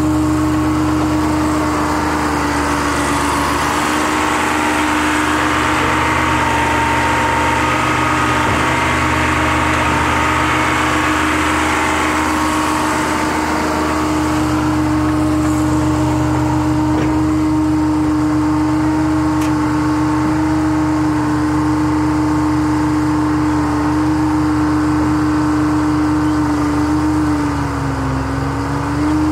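Gradall excavator's engine running steadily while the telescoping boom is worked. Near the end the engine note sags briefly, as when the hydraulics load it, then picks back up.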